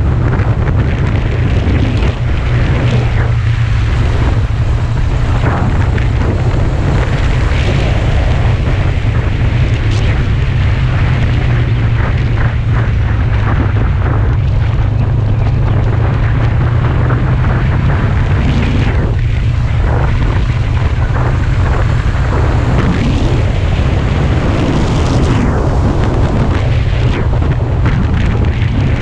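Sport motorcycle at road speed: heavy, steady wind rumble on the microphone with the bike's engine running under it, swelling now and then.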